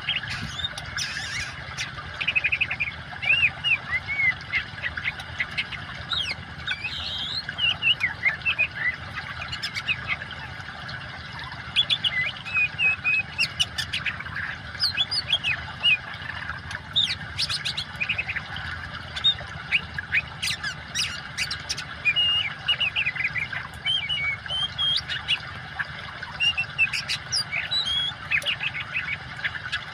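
Oriental magpie-robin singing nonstop: a fast, varied stream of short whistles and chirps over a steady rush of running water.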